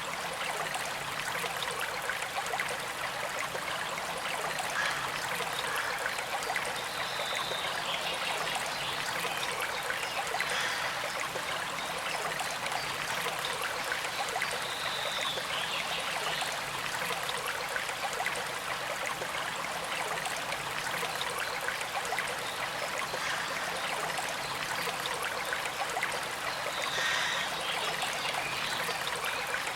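Small creek flowing steadily over stones, with a gentle trickle.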